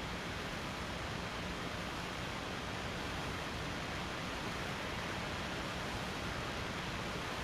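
Steady, even hiss of static with no tones or voices.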